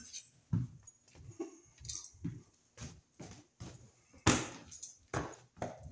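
Short knocks and rustles of someone walking and handling small sheet-metal box holders (box holdits), with a louder clatter about four seconds in.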